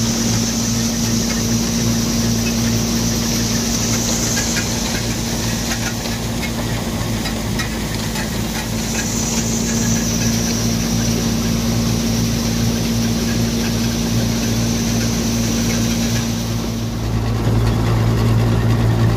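Steady drone of a John Deere tractor engine driving a Punni thresher at working speed, with a steady high hiss as threshed paddy grain pours into a steel trailer. About 17 seconds in, the hiss drops away and the low engine note grows stronger.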